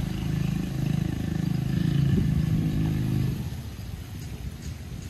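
A motorcycle engine running nearby, growing louder and then fading away about three and a half seconds in.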